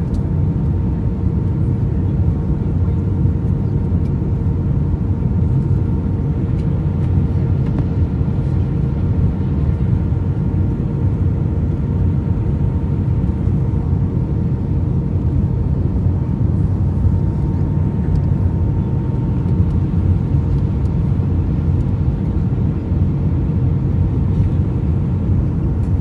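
Jet airliner cabin noise in flight: a steady, unbroken rumble of engines and airflow, with a constant hum on top.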